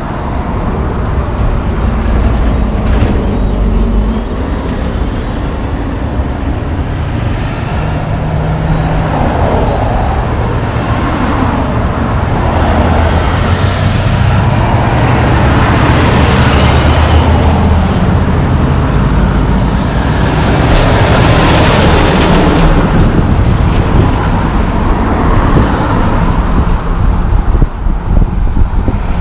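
Highway traffic passing close by: cars and a heavy truck going past, with a low engine drone and tyre noise that swells as each vehicle goes by. It is loudest about halfway through and again a few seconds later.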